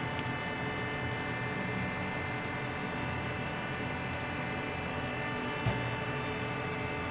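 Steady machine hum, a drone made of several fixed tones over a rushing haze, with a single short knock a little before the end.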